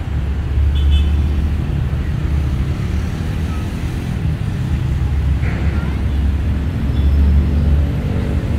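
Urban street traffic: a steady low rumble of passing road vehicles with faint voices. An engine's steady drone comes in near the end.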